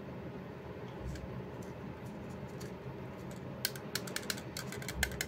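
Rapid run of sharp plastic clicks from an Attack Shark X6 computer mouse, about a dozen in two seconds, starting about three and a half seconds in.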